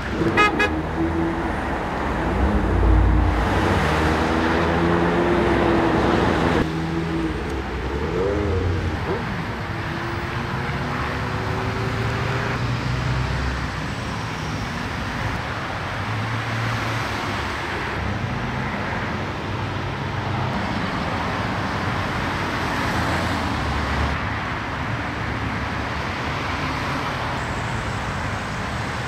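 Road traffic passing close by, cars and vans rushing past one after another. Car horns sound over the first several seconds, the loudest part, before the steady traffic noise continues.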